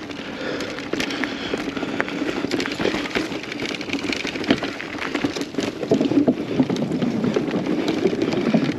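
Kona Process X mountain bike riding down a dirt trail: tyres rolling over rough ground with a constant run of clicks, knocks and rattles from the bike, and wind on the microphone.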